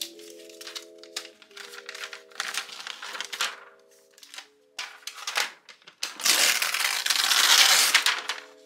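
A new MacBook Air's white protective wrap crinkling and rustling as it is handled and peeled off the laptop, in scattered crackles that become a loud continuous crinkle for the last couple of seconds. Soft background music plays underneath.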